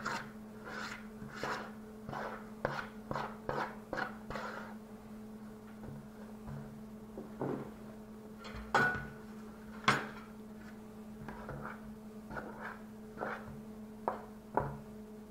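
A fork clinking and scraping against a mixing bowl while stirring biscuit dough: a quick run of light clicks, then a few scattered louder knocks. A steady low hum runs underneath.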